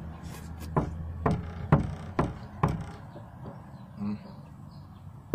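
A run of five sharp knocks about two a second, over a low steady hum, then a quieter stretch with one soft knock.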